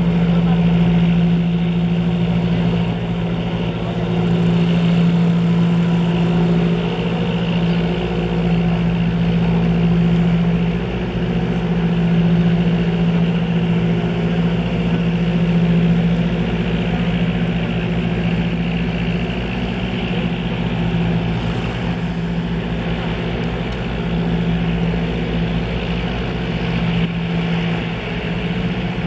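Engine running steadily nearby, a low, even hum that holds throughout.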